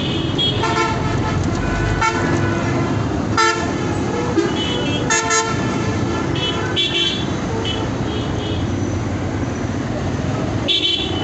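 Heavy street traffic with many vehicle horns honking again and again, short overlapping toots over a steady rumble of engines and road noise.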